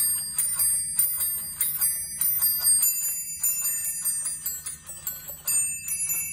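Musical Christmas bell decoration, a little glockenspiel of small brass bells hung on a string, starting a new carol suddenly: a quick melody of struck high bell notes, each left ringing.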